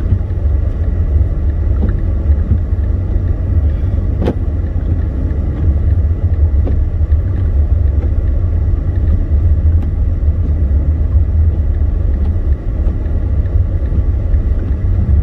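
Steady low rumble of a car driving slowly over snow- and ice-covered roads, heard from inside the cabin. There is one sharp click about four seconds in.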